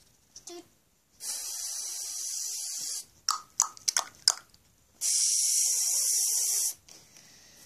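Sound effects made with the mouth: two long hissing "shh" sounds of about two seconds each, with a quick run of about six clicking pops between them, imitating popcorn being made.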